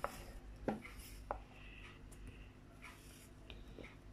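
Kitchen knife slicing a raw potato held in the hand into strips: faint crisp scraping cuts with a few sharp little clicks.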